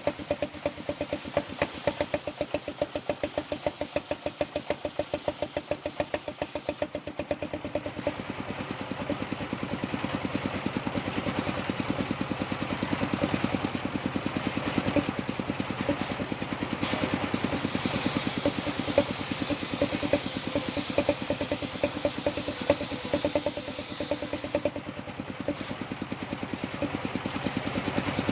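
Engine of a sawmill running steadily with a fast, even knocking beat. From about eight seconds in, a louder hiss builds over it.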